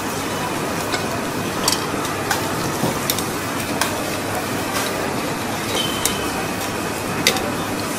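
Steady hiss of a gas burner and frying in a small metal pan, with a metal ladle clinking against the pan several times at irregular intervals as noodles are stirred.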